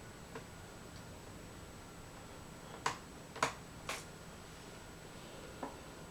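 Three sharp clicks about half a second apart near the middle, with a few fainter ticks, from a Dell Inspiron 1545 laptop's case and parts being handled.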